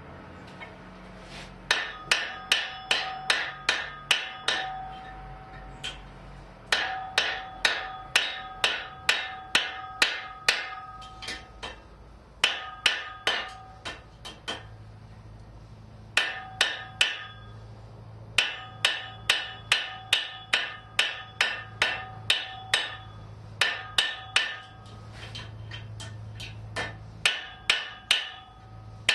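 Hand hammer striking red-hot 3/8-inch mild steel rod on an anvil, drawing its end square and to a point. About three ringing blows a second, in runs of several seconds with short pauses between.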